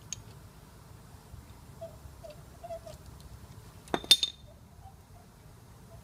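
Hand tools clinking on a brake caliper guide pin: a few faint ticks, then a quick cluster of sharp, ringing metal clinks about four seconds in.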